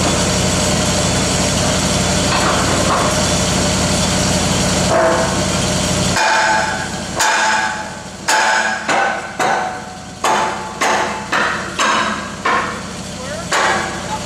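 Steady engine running, then from about halfway through a sledgehammer strikes the steel pipe about a dozen times at roughly half-second intervals, each blow ringing. The hammering knocks the pipe end into alignment while the joint is set in and spaced up.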